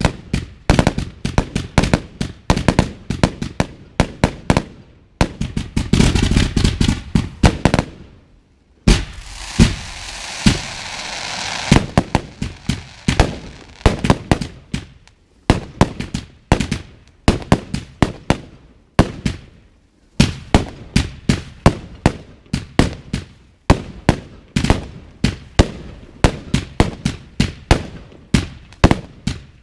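Consumer fireworks going off from a ground-fired battery: a rapid string of sharp launch pops and bangs, several a second. About nine seconds in there are a few seconds of steady hissing.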